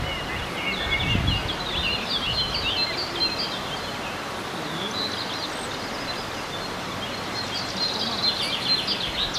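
Small songbirds singing and chirping over a steady outdoor background hiss, with a quick trill near the end.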